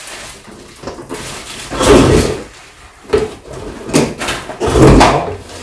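A folding electric bicycle, a Qicycle EF1 Plus, is lifted out of its cardboard shipping box, knocking and scraping against the cardboard. A series of irregular knocks and rustles comes, the loudest about two seconds in and near the end.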